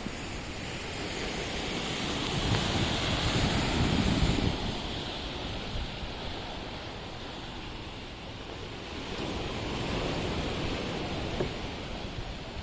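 Rough sea surf breaking on the shore, swelling up twice, with wind on the microphone.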